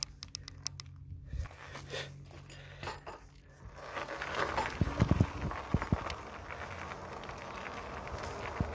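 E-bike riding noise: scattered clicks over a faint low hum, then from about four seconds in a steady rush of wind and tyre noise on asphalt, with a few thumps soon after.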